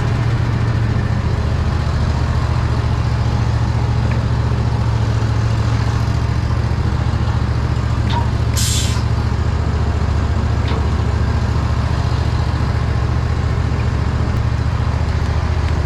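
Ready-mix concrete mixer truck's diesel engine running steadily, with a short hiss of air about eight and a half seconds in.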